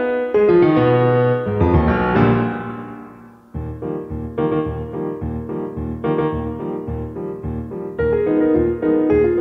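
Intro music played on keyboard. A run of notes fades out about three seconds in, then the tune starts again with a steady bass beat.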